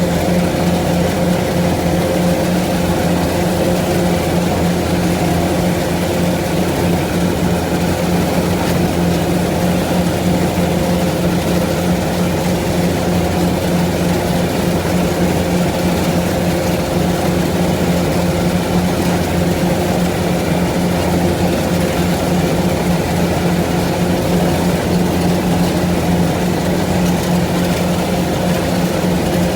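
Engine of farm machinery running steadily at a constant speed, with a steady low drone that does not rise or fall.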